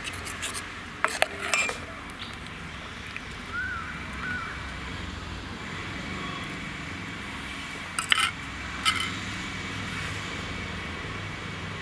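Steel ladle clinking against a stainless-steel pot while stirring a simmering curry: a few quick clinks in the first two seconds, then two more about eight and nine seconds in, over a steady low hum.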